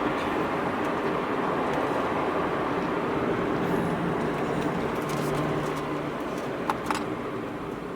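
Subaru BRZ's flat-four engine and tyre road noise heard from inside the cabin while driving, a steady rushing drone. There are two sharp clicks near the end.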